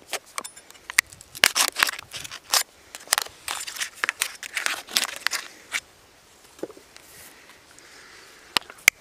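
A knife point scraping, stabbing and grinding into the thin aluminium side of a beer can in short sharp strokes, punching a hole to shotgun the beer. The strokes die away about six seconds in, and a couple of sharp clicks come near the end.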